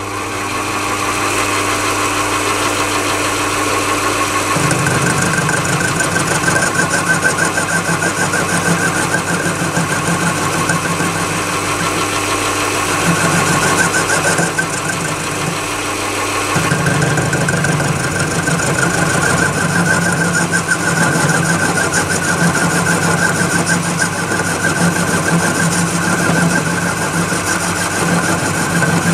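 A Chinese mini lathe running steadily while it turns a square mild steel bar held in a four-jaw chuck. From about four and a half seconds in, a rougher, lower note joins the motor's hum as the tool cuts, and it drops out briefly a couple of times.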